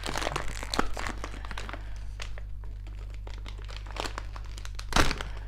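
Plastic packaging bag crinkling and rustling as it is handled and pulled open around a filament spool, in irregular crackles with a louder sharp crackle about five seconds in.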